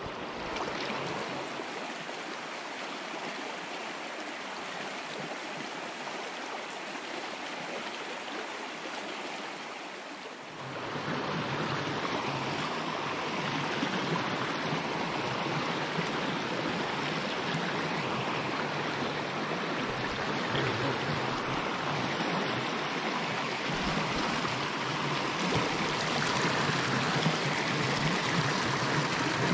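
Small rocky mountain stream running over shallow riffles: a steady rush of water. About ten seconds in, the rush becomes louder and fuller.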